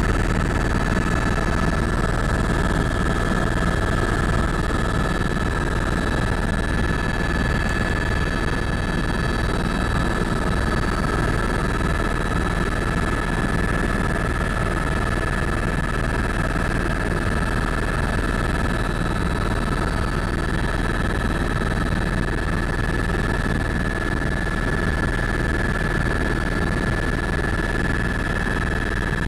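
Tour helicopter in steady cruise flight, heard from inside the cabin: a constant engine and rotor drone with steady high-pitched turbine whine tones over it.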